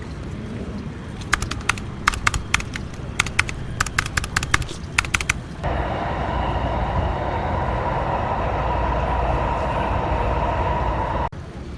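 Irregular sharp clicks for about five seconds, then a steady rushing noise with a low rumble that starts abruptly and cuts off suddenly near the end.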